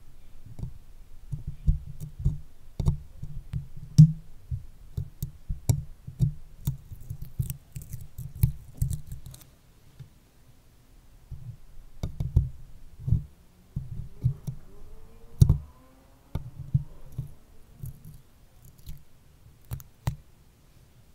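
Stickers being pressed onto and peeled off a microphone right at its capsule: a dense run of soft thumps and sharp clicks and crackles, with a short pause about ten seconds in before the handling resumes.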